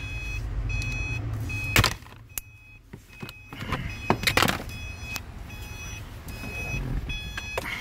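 A 2013 Subaru Forester's warning chime dinging over and over, about once every 0.7 s, with the driver's door open. Handling clicks and knocks from reaching around the kick-panel connector sound over it, the sharpest about two seconds in.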